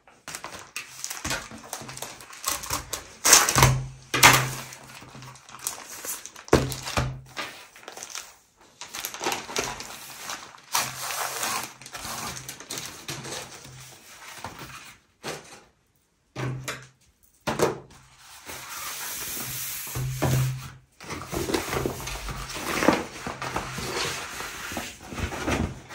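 Fabric rustling with soft knocks and taps as a tablecloth is unfolded and spread over a table, broken by a few sudden cuts to silence.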